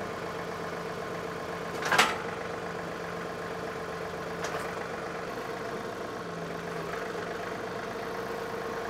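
Compact tractor engine running steadily at a low, even speed, with one sharp knock about two seconds in and a fainter one a couple of seconds later.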